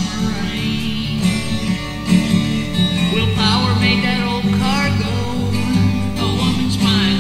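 A voice singing a song line by line over a 12-string acoustic guitar.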